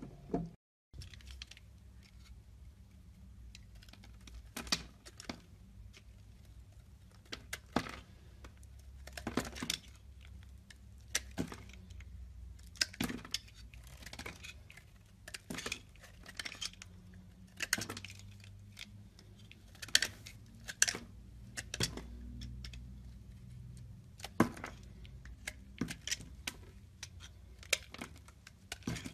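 Utility-knife blade shaving and cutting into a bar of soap: a string of crisp, irregular scrapes and crackles, one every second or so, over a faint low hum.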